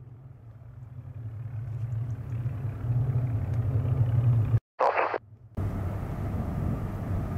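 Low, steady drone of distant Rolls-Royce Merlin piston engines from Spitfires and Hurricanes circling and landing, growing louder over the first few seconds. It breaks off abruptly just past halfway for a short burst of airband radio, then the drone resumes.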